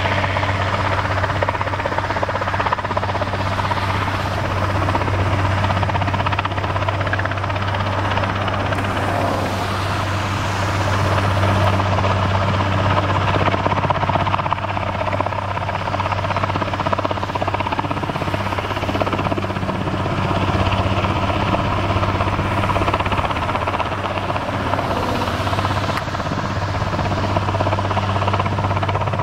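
Helicopter crane hovering with an air-conditioning unit slung beneath it on a long cable, its rotor and engine running as a steady, deep drone.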